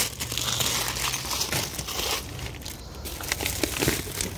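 Plastic-wrapped grocery packages crinkling and rustling as they are handled and set down, with a scatter of light knocks.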